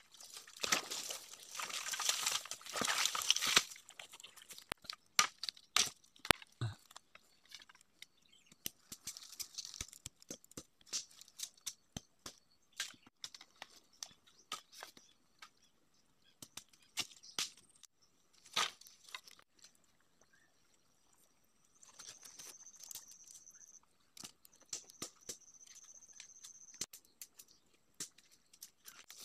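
Leafy bamboo stems and brush rustling and swishing as they are pulled and carried for the first few seconds, then scattered sharp cracks and snaps of bamboo being handled and split. About two-thirds of the way in, a high steady buzz comes twice, each lasting about two seconds.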